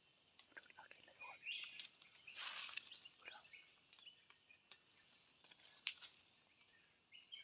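Quiet forest ambience: faint, scattered bird chirps and insect sounds, with a brief rustle about two and a half seconds in.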